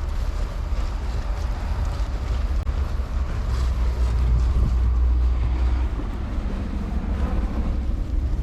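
Wind buffeting the microphone: a heavy, gusting low rumble that swells around the middle, over a steady hiss of outdoor noise.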